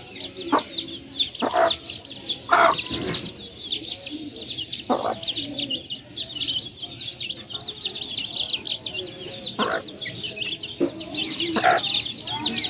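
Chickens: a crowd of chicks peeping in a constant stream of short, high chirps, with about six short clucks from a hen cutting through.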